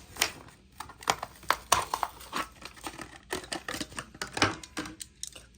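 A Matchbox car's blister pack being opened by hand: irregular crackles, tears and clicks of stiff plastic and cardboard.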